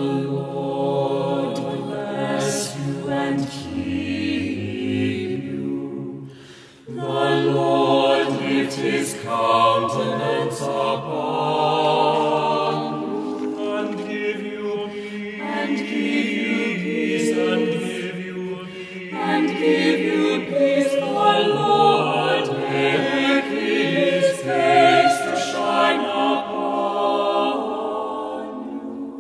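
A choir singing a slow choral benediction in long held chords, with a short break between phrases about six and a half seconds in.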